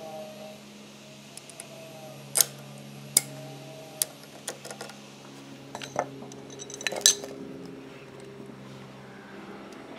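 Sharp metallic clicks and clinks of a steel bobbin case being fitted and snapped into the rotary hook of a Singer 241-12 industrial sewing machine. There are single clicks about a second apart, then a quick cluster of clicks, over a steady low hum.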